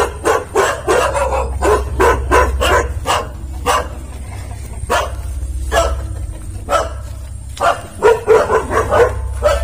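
Dogs barking repeatedly: a quick run of barks, a few spaced single barks, then another rapid run near the end, over a low steady rumble.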